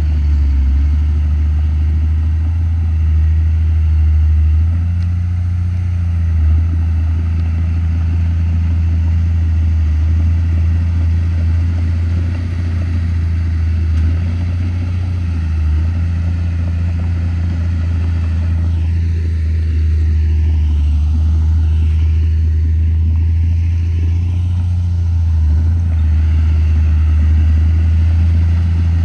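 Komatsu D31P crawler bulldozer's diesel engine running steadily at work, a deep continuous drone that swells and eases slightly.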